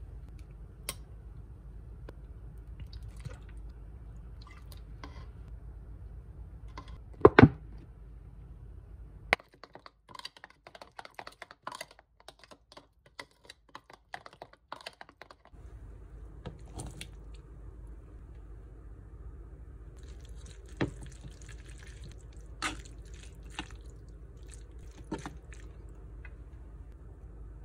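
Metal spoon clinking and scraping against a glass bowl while a thick chili-paste sauce is mixed, as scattered clicks and knocks with one louder knock about a quarter of the way in. A low steady hum runs underneath.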